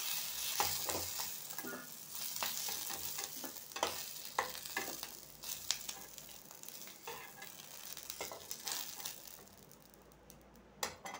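Onion and capsicum pieces sizzling in hot mustard oil in a kadai as a spatula scrapes and lifts them out, with scattered sharp clicks of the spatula against the pan. The sizzle dies away near the end as the pan empties.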